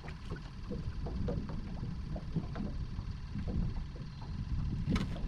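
Water lapping and slapping against the hull of a small fishing boat, over a low rumble of wind on the microphone, with scattered small splashes and ticks; one sharper click about five seconds in.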